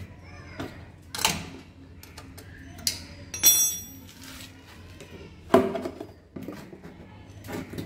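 Metal spanner and steel drain bolt clinking as a scooter's gear-oil drain bolt is undone, a few separate clicks and knocks with a short metallic ring about three and a half seconds in. A sharp knock comes just past halfway.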